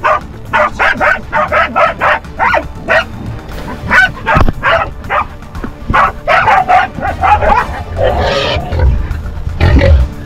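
Hunting dogs barking hard and fast, about three barks a second, at quarry cornered in a cave. The barking gives way to a rougher, lower noise in the last two seconds or so.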